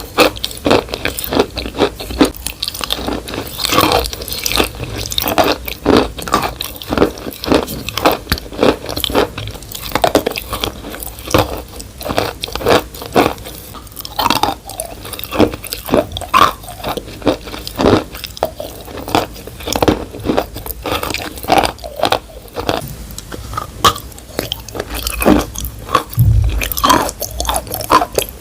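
Wet, crunchy chewing and biting close to the microphone, a dense run of irregular crunches and squelches.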